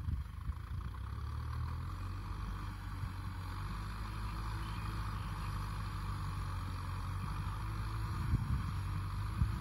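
Kubota M6040SU tractor's diesel engine running steadily under load, pulling a disc plow through dry ground.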